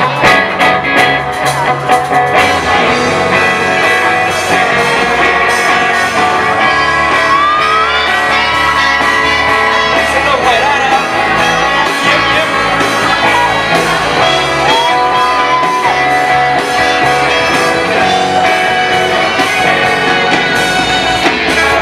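A live band plays a song, with electric guitars, bass guitar, drums, keyboard, saxophone and trumpet behind a male lead singer who sings through a PA.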